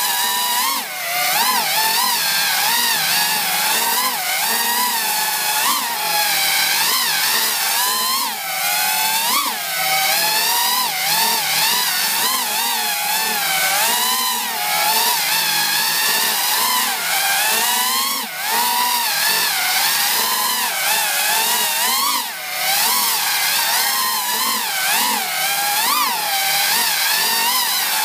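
DJI Snail racing quadcopter's brushless motors and propellers whining in flight, the pitch continually rising and falling with the throttle and dipping briefly in loudness now and then. Heard from on board, with the spinning props right beside the camera.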